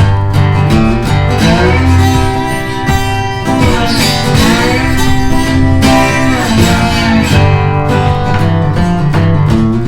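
Background music led by acoustic guitar, in a country style, with a steady bass line.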